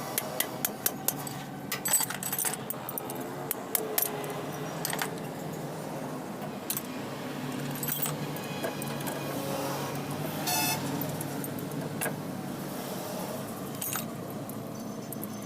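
Sharp metallic clinks and taps of hand tools and metal parts during work on a truck differential, coming thick and fast in the first few seconds, then now and then. A steady low hum runs underneath.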